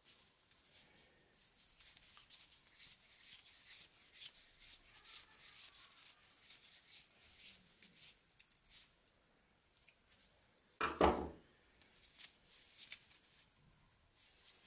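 Screwdriver turning the pivot screw of a pair of steel scissors: a run of faint, small metal scrapes and clicks, with one louder short knock about eleven seconds in.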